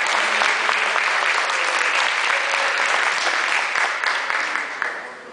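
Audience of a few dozen people applauding, dense clapping that dies away near the end.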